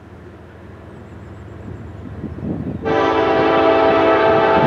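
Approaching Norfolk Southern diesel locomotive: a low rumble builds, then about three seconds in its air horn sounds one long, steady chord of several tones.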